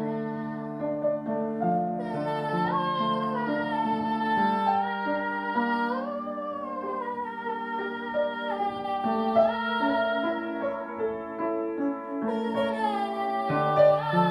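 Cello and piano playing a slow, lyrical melody, with long held notes and sliding, vibrato phrases in the melody line.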